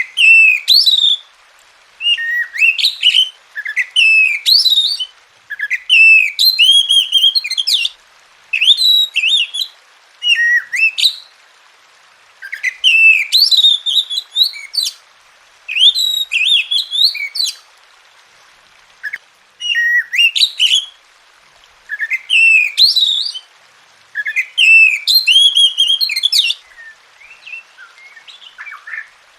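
Oriental magpie-robin (kacer) in full song: loud, varied, whistled phrases of one to two seconds each, repeated about a dozen times with short pauses between them.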